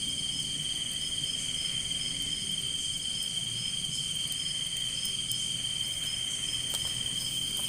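Night insect chorus of crickets: a steady high trill with a faster pulsing chirp layered above it.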